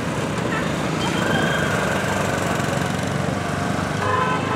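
Road traffic with motor vehicle engines running steadily, and a vehicle horn sounding briefly near the end.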